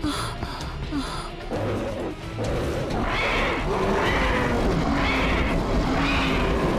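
Cartoon action music with animated dinosaur roars and growls over it. The roars come in four bursts about a second apart in the second half.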